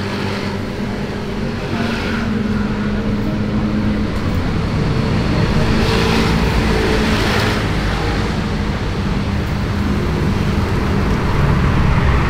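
Steady road traffic rumble, with a vehicle passing about six seconds in.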